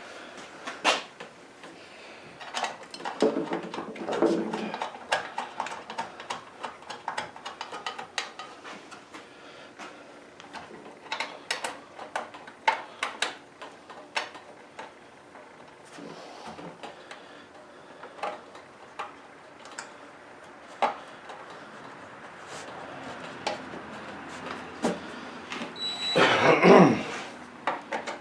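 Scattered clicks, taps and knocks of hand tools and metal parts being handled and fitted while a push mower is reassembled, with short bursts of clattering about three seconds in and again near the end.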